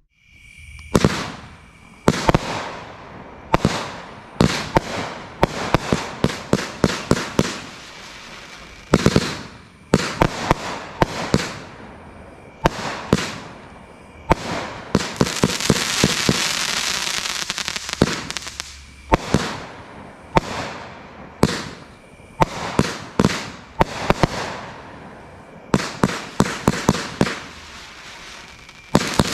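Brothers Fireworks 'Bamboozle' 42-shot 500 gram cake firing: fast volleys of shots launching and bursting in quick succession, with a few seconds of continuous hissing around the middle.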